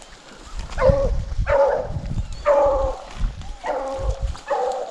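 A lone rabbit hound baying on a swamp rabbit's track, about one call a second: the dog is trailing the rabbit in full chase.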